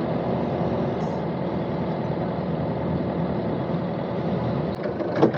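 A sailing boat's engine running steadily, a continuous even hum while the boat is manoeuvred in the marina.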